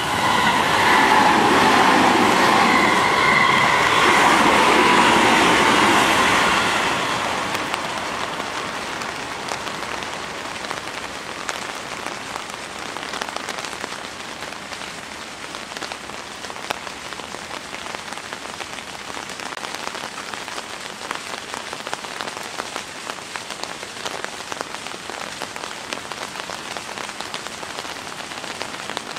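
Seibu 30000 series electric train running past, loudest for the first six seconds or so and then fading away. Steady rain falling on the ground for the rest.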